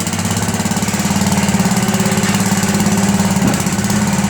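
Small gasoline engine of a late-1970s Roscoe one-ton roller running steadily with a fast, even beat while the roller drives at its set rolling speed through its newly fitted hydraulic drive.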